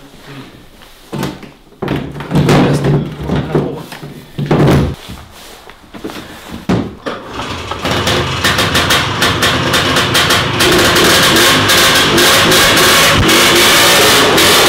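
Engine of a 1973 Sno-Tric SC 20-2 snowmobile being started: uneven knocks and short bursts, then about eight seconds in it catches and runs with a rapid, even firing. It grows louder and settles into a loud steady run a couple of seconds later. This is an engine that does not run clean even after a carburettor adjustment and a new spark plug.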